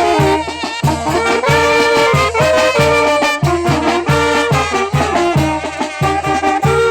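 Mexican brass band playing a chilena: a brass melody over a steady, evenly pulsing bass beat.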